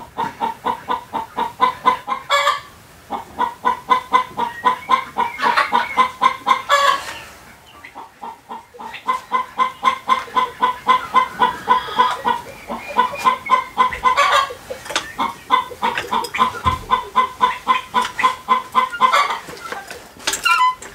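Chickens clucking in quick, repeated notes, broken by a few short pauses and a few brief knocks.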